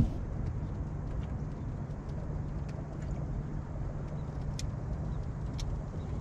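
A boat motor running with a steady low hum, with a few faint ticks.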